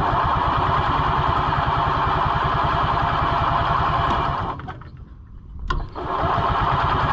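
The two-stroke engine of a 1980 Harley-Davidson golf cart is cranked by its starter with the choke on. It turns over in a fast, even rhythm without catching, stops about four and a half seconds in, and after a click is cranked again. The owner blames weak spark.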